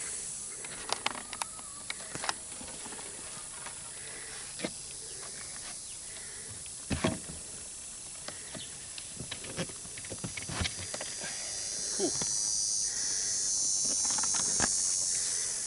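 Scattered light knocks and clicks of wooden frame pieces being handled and fitted by hand, over a steady high insect hiss that swells into a louder buzz near the end.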